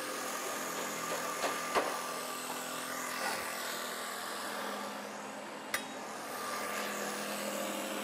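Jigsaw running steadily as it cuts through a wooden stair stringer, with a few sharp knocks about a second and a half in, just before two seconds, and near six seconds.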